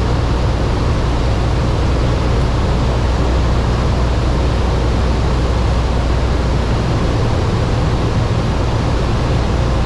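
Steady drone of a Cessna 172's piston engine and propeller in cruise, heard inside the cockpit: a constant low hum under an even rush of air noise.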